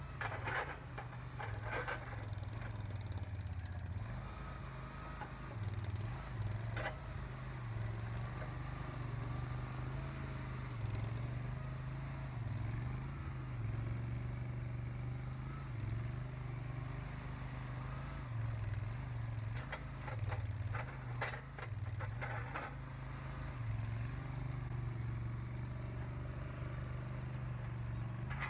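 Boxer 427 mini skid steer's engine running steadily, its note dipping again and again as the hydraulics and tracks are worked under load, with occasional sharp clanks, a cluster of them about two-thirds of the way through.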